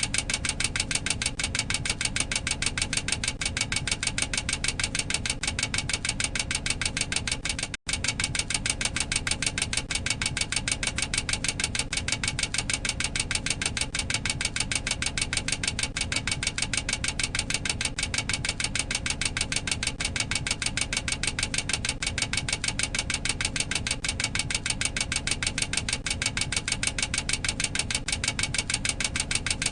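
Boeing 737-800 cockpit overspeed warning clacker sounding: a rapid, even, continuous clicking that signals the aircraft is exceeding its maximum operating speed. It drops out for an instant about eight seconds in.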